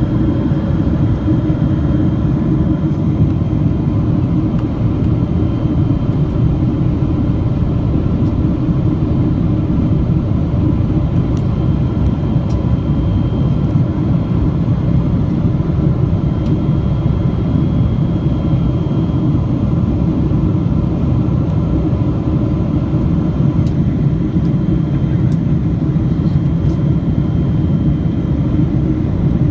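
Steady cabin noise of a Boeing 777-300 in flight, heard from a window seat beside the engine. The jet engine and airflow make an even, unbroken drone, with a faint steady hum running through it.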